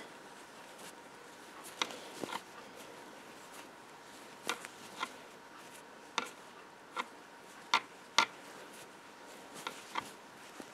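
Metal crochet hook working yarn in single crochet: faint, irregular small clicks and rubs, about one a second.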